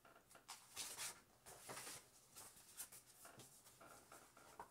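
Faint rustling and scraping of a picture book's paper pages as they are turned and handled, in several short strokes.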